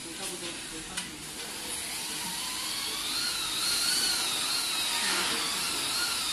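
A small power tool's electric motor whining, starting about two seconds in and running on with a slightly wavering pitch, over a steady hiss of workshop noise. A single light metal click about a second in.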